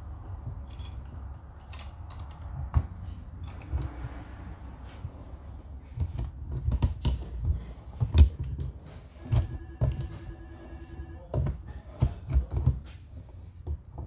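Pipe wrench clinking and knocking against the threaded steel gland cap of a hydraulic cylinder as the cap is tightened. The knocks come irregularly, and the loudest falls about eight seconds in.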